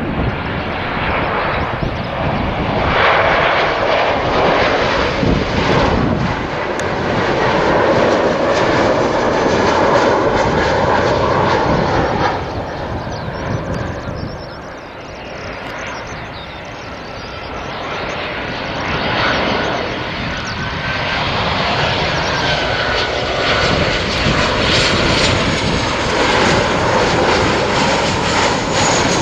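Jet engines of twin-engine airliners on landing approach passing low: a loud steady rushing engine noise, first from an Embraer E-Jet and then from a Boeing 737-800. It swells, dips about halfway through, and builds again, with a thin whine in the second half.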